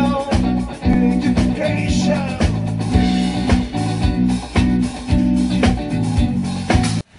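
Small live band playing: electric guitar, electric bass and drum kit through a PA, with a steady beat and a prominent bass line. The music cuts off suddenly near the end.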